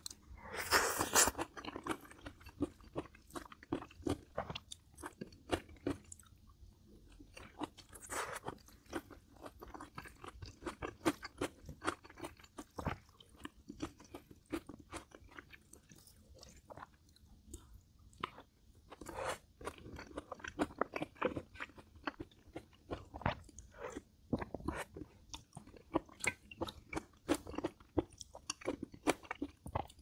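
A person chewing and crunching mouthfuls of sea squirt bibimbap close to the microphone, with wet clicks throughout and a few louder crisp bites: about a second in, around eight seconds and around nineteen seconds.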